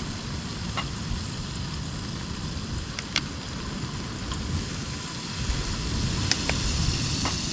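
Oil sizzling and spitting in a frying pan over a camping stove, with a few sharp pops, over a low steady rush.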